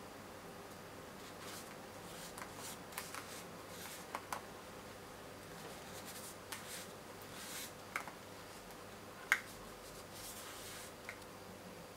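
Hands working with the small plastic pieces of a DIY candy kit: a string of light clicks, taps and rustles, the sharpest click about nine seconds in, over a faint steady hum.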